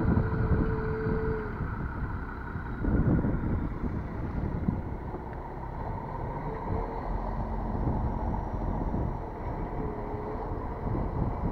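A vehicle engine running, with wind buffeting the microphone and swelling in gusts at the start and about three seconds in.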